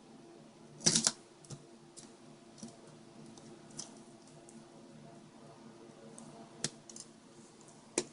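Scattered sharp clicks and light clatter of a screwdriver and pliers against the metal bracket and screen of a heated GPS display as the bracket is pried off, the loudest clatter about a second in.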